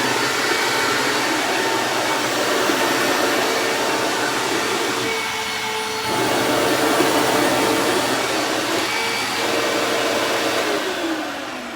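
Hoover WindTunnel Self-Propelled Ultra upright vacuum cleaner running loud, with a steady whine over its rushing air. Near the end the motor is switched off, and its whine falls in pitch as it spins down.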